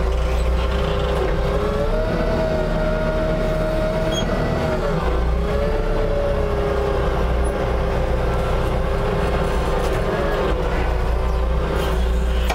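Jungheinrich forklift running while it reverses and manoeuvres. Its motor note rises about two seconds in and settles back down about three seconds later, over a steady low rumble.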